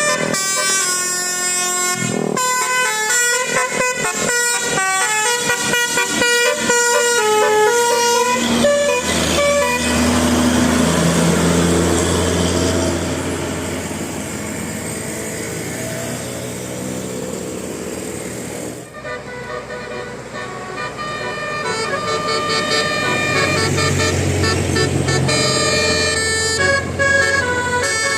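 Basuri musical air horn on a bus playing quick melodic runs of stepping notes. In the middle the horn gives way to the bus's engine running and revving with road noise, then the horn tunes start again for the last several seconds.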